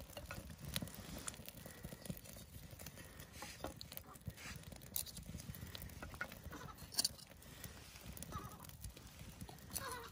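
Split birch kindling sticks knocking and clattering as they are laid crosswise onto a freshly lit wood fire, with scattered small cracks and pops from the fire; the sharpest knocks come about seven seconds in.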